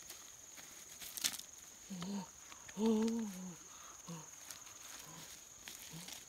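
A person's short wordless vocal sounds, a brief one about two seconds in and a longer, louder one a second later, over a steady high drone of insects. A few clicks of footsteps on loose pebbles come through.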